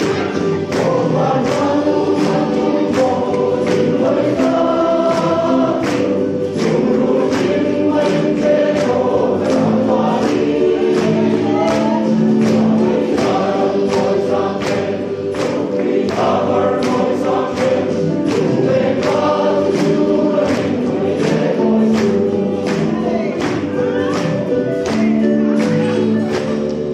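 Men's choir singing a gospel song in several parts, to a steady percussion beat.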